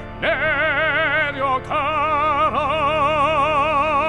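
Male pansori singer holding long notes with a wide, even vibrato, singing the command 'go down' (내려가라), with short breaths between phrases, over a steady low sustained accompaniment.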